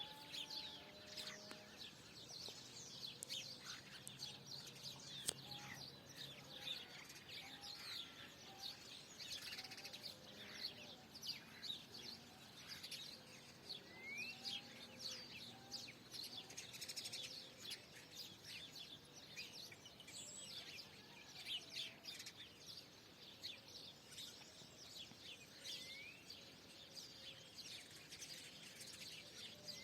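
A faint dawn chorus of small birds: many short, high chirps overlapping, with an occasional rising whistled note.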